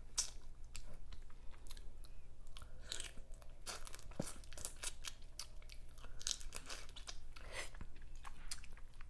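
Close-miked chewing and crunching of boiled shrimp, irregular wet bites and crunches.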